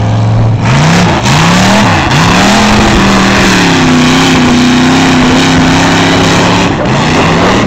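Lifted mud truck's engine revving hard as it charges through the mud. It gives several quick revs that rise and fall, holds at high revs for about three seconds, then drops and climbs again near the end.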